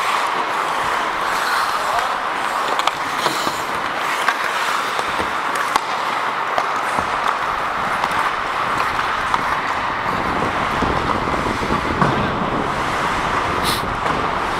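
Ice hockey play heard on the ice: skate blades scraping the ice steadily, with many small clicks of sticks and puck, and indistinct players' voices.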